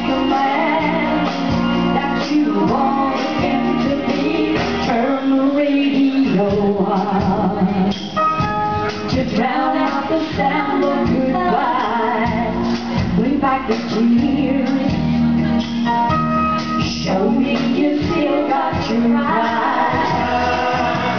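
Karaoke backing track playing through a pub's PA speakers, with a woman singing along live into a microphone.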